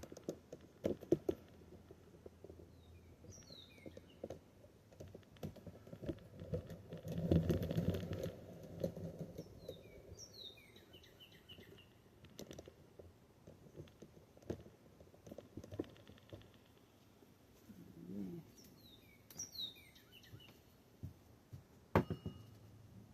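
Scattered light clicks and knocks of hand tools and bicycle brake parts being handled, with a longer rustling scrape about seven seconds in and a sharp knock near the end. Birds chirp three times in short runs of quick falling notes.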